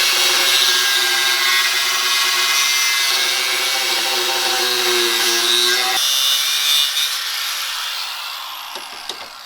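A power tool runs steadily with a whining, grinding sound, then winds down and fades over the last couple of seconds, as the old front bumper is being taken off a Toyota Land Cruiser.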